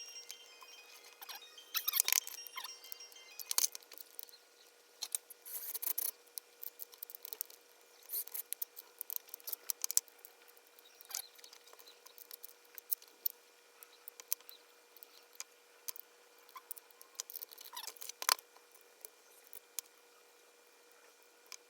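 Irregular small clicks, taps and scrapes, as of small parts and hand tools being handled, over a faint steady hum.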